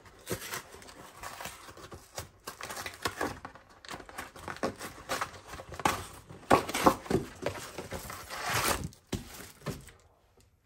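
Cardboard pizza box being torn open and handled, with crinkling of the plastic film around the frozen pizza: irregular tearing, rustling and crackling that grows busier in the second half and dies down shortly before the end.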